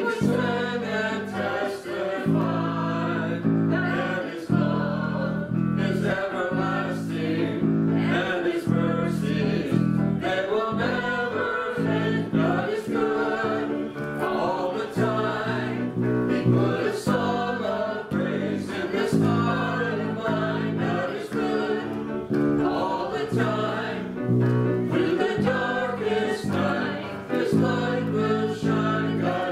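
A small live worship band playing a song: voices singing over keyboard chords and guitar.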